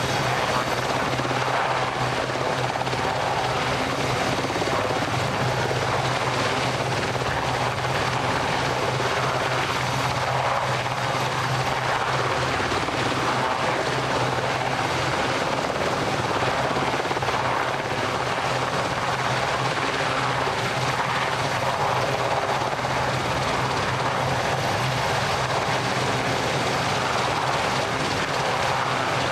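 Steady, unbroken engine drone with a constant low hum underneath.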